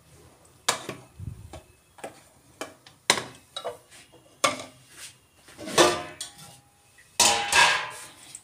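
Kitchen utensils clattering against a nonstick kadhai: about ten separate knocks and clinks, some ringing briefly. A longer, louder clatter comes near the end.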